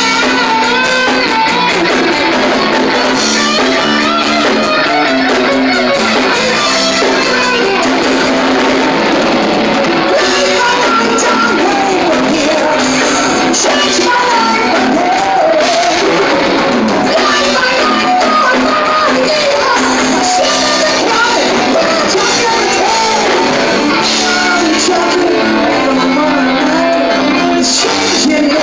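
Live rock band playing amplified: electric guitar, bass and drums, with a man singing lead into a microphone over it partway through.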